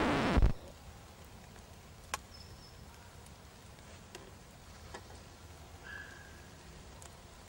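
Acoustic guitar music cuts off about half a second in. Quiet woodland ambience follows, with one sharp click about two seconds in, a few softer ticks and a couple of faint short chirps.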